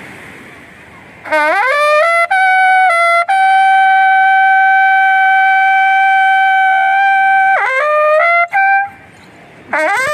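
Turri, the long curved brass horn of Kumaoni Chaliya music, blown loudly. It slides up into a few stepped notes, holds one steady note for about four seconds, breaks off, then comes back near the end with wavering notes.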